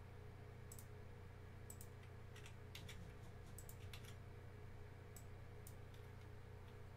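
Faint, irregular clicks of a computer keyboard and mouse, a dozen or so scattered through, over a steady low hum.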